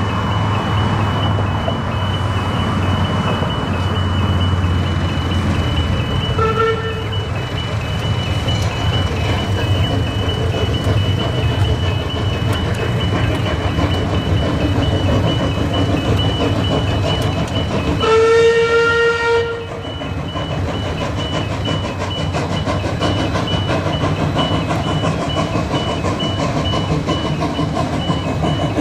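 C17 class steam locomotive's whistle sounding a short toot about six seconds in and a longer blast of about a second and a half near eighteen seconds, the loudest sound. Beneath it run the steady rumble of the approaching locomotive and the rapid, continuous ringing of a level crossing's warning bell.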